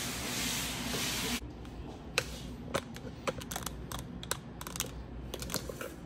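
A steady hiss cuts off abruptly after about a second and a half. It is followed by irregular sharp crackles and clicks of plastic packaging being handled as a bed-in-a-box mattress is opened.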